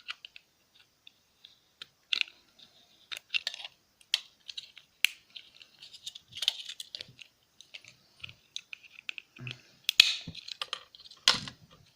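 Plastic parts of an old alarm clock clicking and clattering as it is pulled apart by hand, with irregular small clicks and a couple of sharper snaps near the end as the brittle plastic casing breaks up.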